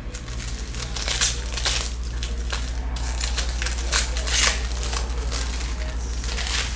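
Clear plastic wrapping crinkling and crumpling in hands, an irregular run of crackles with louder crunches about a second in and again around four seconds in.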